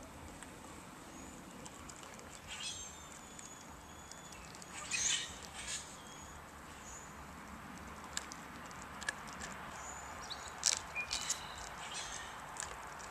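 Greyhound chewing raw chicken bits, with irregular wet crunches and clicks of bone between her teeth, coming more often in the second half.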